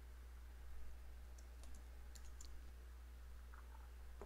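A few faint, short clicks from the computer, bunched about a second and a half to two and a half seconds in, over a steady low electrical hum.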